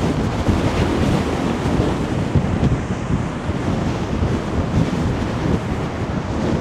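Strong wind buffeting the microphone over a rough sea surging against the sea wall, a steady, dense rumble.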